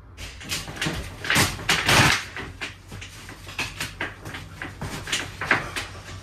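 Wooden floorboards being prised and pulled up by hand: a quick run of cracks and knocks from the boards, loudest about one and a half to two seconds in.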